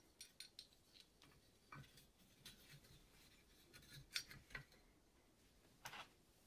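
Faint handling noise: a metal tube clicking and scraping as it is slid into a wooden stand, a scatter of small sharp clicks with the loudest a little after four seconds and another near six.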